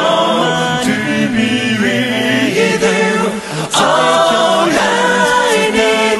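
Anime theme song with layered, choir-like singing over the backing music; the sound drops briefly about three and a half seconds in, then comes back in full.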